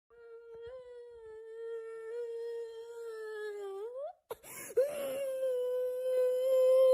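A young boy crying: a long, steady wail held for about four seconds that rises in pitch at its end, a short sobbing breath, then a second long wail.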